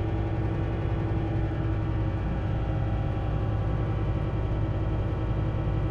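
Truck driving at motorway speed: a steady low engine hum with road noise, unchanging throughout.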